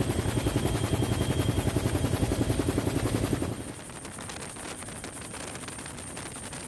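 Helicopter rotor and engine noise with a fast, even pulsing beat, loud at first, then dropping to a quieter steady rumble and hiss about three and a half seconds in. A thin high whine runs under it.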